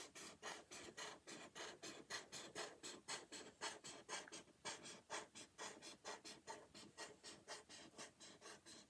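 Black marker scratching on paper in quick, short back-and-forth strokes, about four to five a second, faint.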